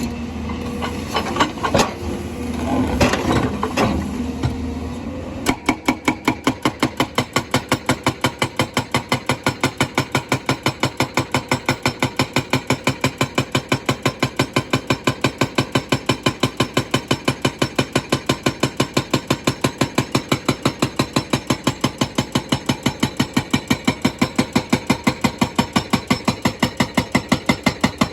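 Excavator engine running with a few knocks, then about five seconds in a hydraulic rock breaker starts hammering stone in a steady, fast rhythm of about four blows a second.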